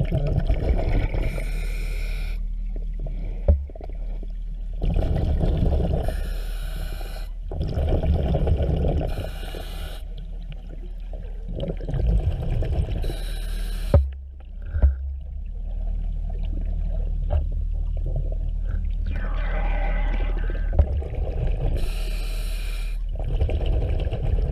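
A diver breathing underwater through a regulator: several uneven breath cycles, hiss alternating with lower bubbling rumble. A few sharp knocks come in between.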